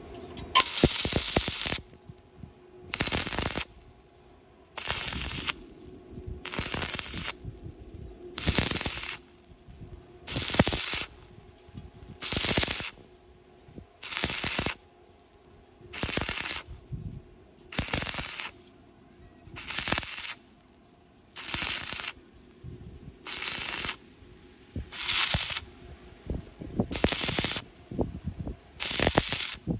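Electric arc welding in short, evenly timed bursts: the arc is struck and crackles for under a second, then breaks, about every two seconds. This is stitch welding, laying the bead in short pulses to bridge a deep gap.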